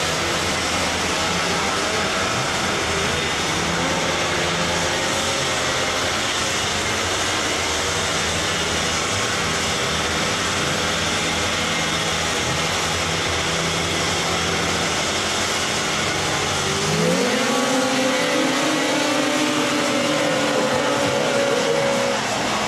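A pack of two-stroke racing snowmobile engines running at idle in a steady drone. About three-quarters of the way in their pitch rises sharply as they rev up, then holds high at speed.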